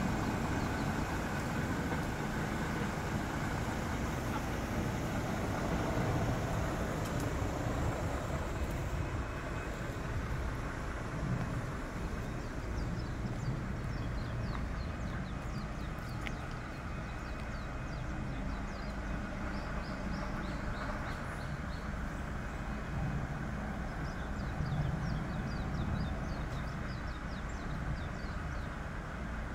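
Diesel engine of a truck-mounted UNIC crane running steadily, driving the crane's hydraulics while it holds a suspended office container.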